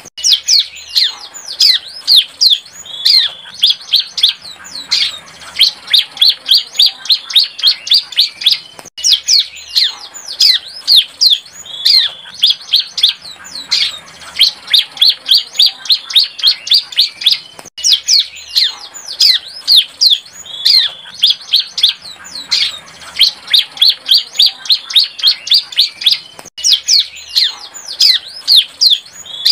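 Young bar-winged prinia (ciblek) singing a fast, continuous run of sharp, high chirps, about four or five a second, many sweeping downward. It is a juvenile's song still being learned, of the kind used as a lure call for trapping ciblek. The run breaks briefly about every nine seconds and starts over.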